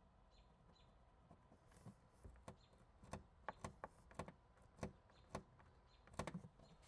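Faint, irregular clicks and light scrapes of old double-sided tape adhesive being picked and scraped off car window glass.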